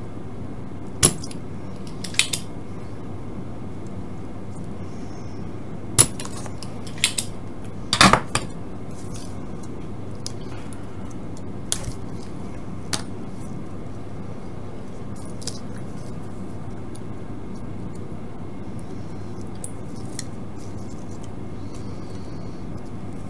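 Sharp clicks and clacks of desoldering a tuning capacitor from a small radio circuit board: a spring-loaded solder sucker snapping, with the board and parts being handled. A few loud clicks come in the first eight seconds or so, then only fainter taps, over a steady hiss and low hum.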